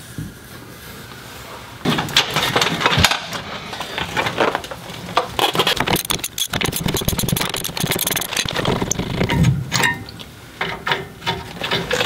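A socket ratchet working the rusty rear brake caliper bracket bolts loose on a 2002 Chevy Silverado. There are rapid ratchet clicks and metal clanks, quieter for the first couple of seconds and then a dense run of quick clicking through the middle.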